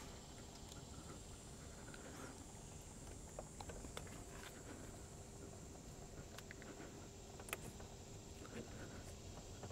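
Quiet room tone with a few faint, scattered clicks and taps from handling the cable-operated hose clamp pliers and spring hose clamp on a rubber radiator hose. The clearest click comes about three-quarters of the way through.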